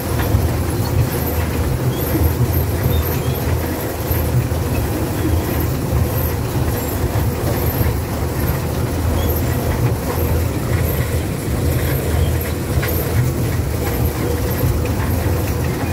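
Amusement-park ride train running along its track, heard from a seat in its open carriage: a steady rumble of the carriage and wheels with a constant hum underneath.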